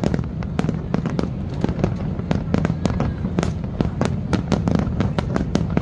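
Aerial fireworks display: a rapid, irregular string of bangs and crackles, several a second, over a steady low background noise.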